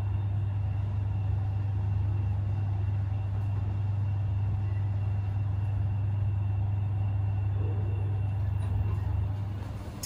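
Elevator machinery running with a steady low hum and faint high tones, easing off near the end.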